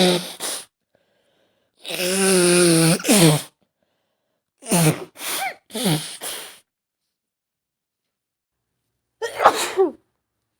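A woman sneezing over and over with a cold, the sneezes voiced. The tail of one sneeze is followed by a long drawn-out sneeze about two seconds in, then three quick sneezes in a row around the five-second mark, and one more near the end.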